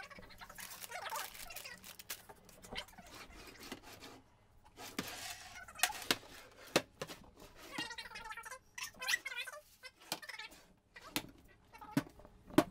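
Wooden kitchen cabinet doors and drawers being opened and closed by hand, a series of sharp knocks and clicks from the doors, drawer fronts and slides, several in quick succession in the second half.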